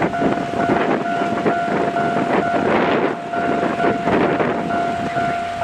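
Japanese level-crossing alarm ringing in a fast, even repeating pattern while the shunting train of a DE10 diesel locomotive and 12-series coaches rolls over the crossing, its wheels clattering over the rail joints in irregular knocks.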